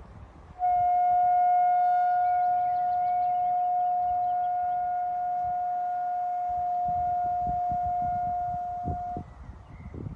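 Siren sounding a single steady tone for about eight and a half seconds, starting and stopping abruptly at one unchanging pitch.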